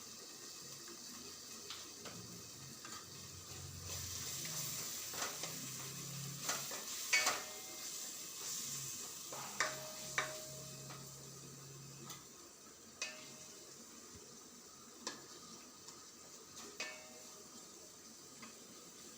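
A spoon stirring a tomato-sauce masala in a pan over the heat. The sauce sizzles, louder in the middle stretch, and the spoon knocks against the pan a dozen times, some knocks leaving a brief metallic ring.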